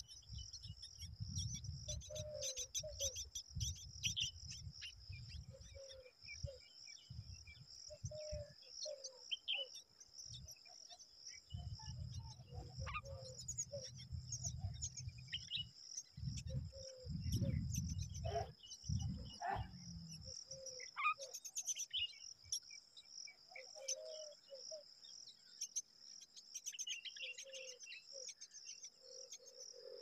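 Steady high-pitched insect trill running throughout, with scattered bird chirps and short calls over it. Bursts of low rumbling noise come and go through the first two-thirds.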